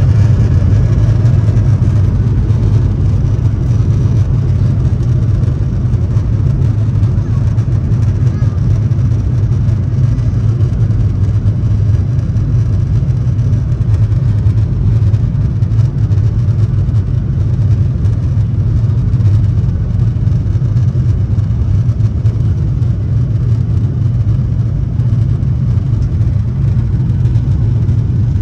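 Jet airliner cabin noise while the plane moves on the ground: a loud, steady low rumble of the engines and airflow heard from a seat over the wing, with no change in pitch.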